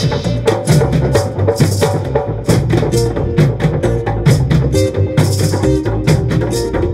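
Acoustic reggae band playing live: acoustic guitars and an acoustic bass guitar over a steady percussion beat.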